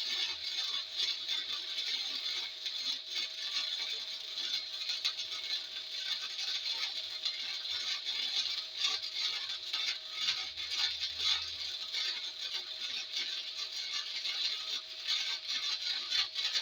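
Arc welding on a steel truck frame: the arc crackles steadily and densely as a weld bead is run, with a faint steady hum underneath.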